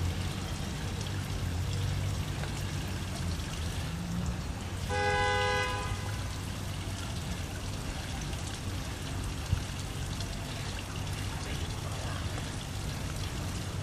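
Steady rushing background noise, with a horn sounding once for about a second about five seconds in. A single sharp tap a little past nine seconds.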